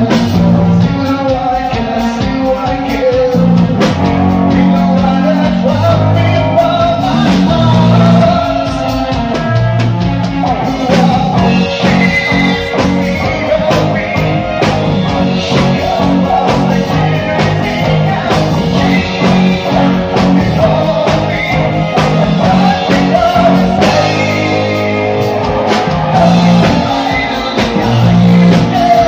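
Live rock band playing: a male vocalist singing into a handheld microphone over electric guitar and drums with a steady beat.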